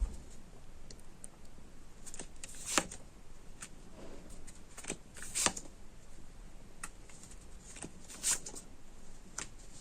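Tarot cards being drawn and laid out: faint, scattered rustles and light snaps of cards, with three slightly louder ones spread through.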